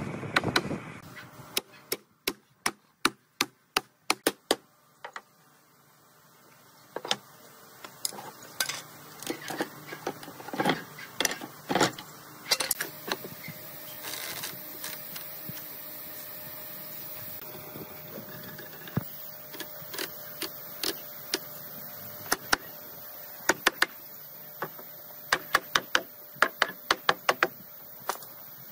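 Runs of sharp wooden knocks: a wooden mallet tapping a wooden rail down onto the ends of bed slats, several quick strikes in a row, then more scattered knocks and clicks later on.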